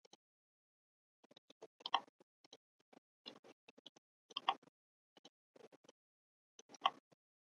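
Faint, irregular clicking and ticking of a computer mouse as the 3D view is turned and zoomed, with a slightly louder cluster of clicks about every two and a half seconds.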